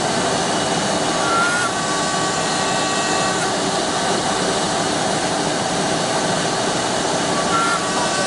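CNC wood lathe running, its cutter machining a turned wooden blank: a steady, dense whirring noise with no breaks.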